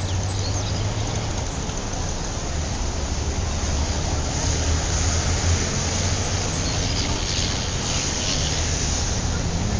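Steady city traffic noise: a low rumble under an even hiss.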